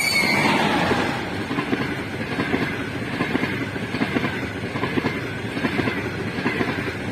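EP20 electric locomotive and its passenger coaches passing at speed, the wheels clattering over rail joints in a quick, regular rhythm. A brief high tone falls slightly in pitch at the very start as the locomotive goes by, the loudest moment.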